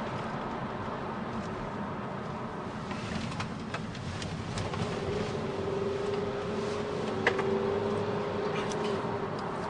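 Car cabin noise while driving: a steady rumble of engine and tyres, with scattered small clicks and a steady hum that comes in about halfway through.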